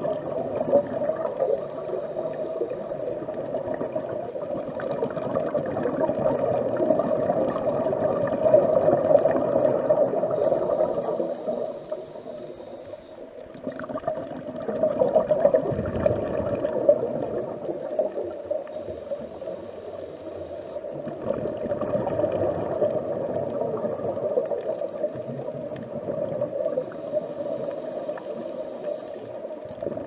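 Underwater ambience of a dive: a continuous muffled gurgling rush of water and bubbles that swells and eases every few seconds, with a quieter stretch about twelve seconds in.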